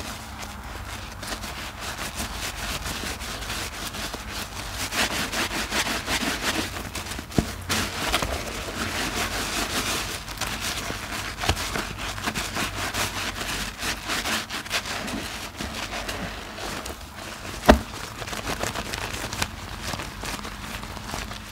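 A soapy sponge squeezed and scrubbed by hand in a basin of sudsy water: steady wet squelching with the crackle of foam, broken by a few sharper clicks, the loudest one late on.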